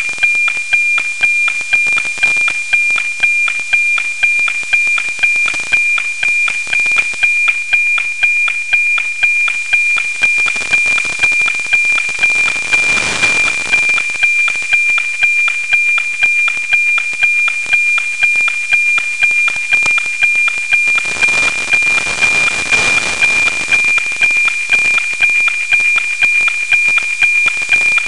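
NOAA 19 weather satellite's APT image signal received by a software-defined radio: a steady high tone with a regular tick-tock beat twice a second. Static hiss swells up about halfway through and again about three quarters of the way in, the white noise of a weak signal on a low pass.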